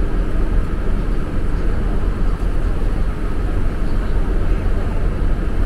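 Steady low rumble of a river shuttle boat under way, its engine running at cruising speed, heard from inside the passenger cabin.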